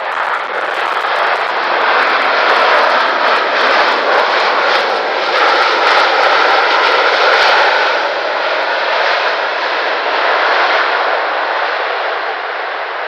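Jet airliner passing close as it lands, a loud rush of engine noise that builds over the first couple of seconds, holds, and slowly fades near the end, with a faint whining tone in the middle.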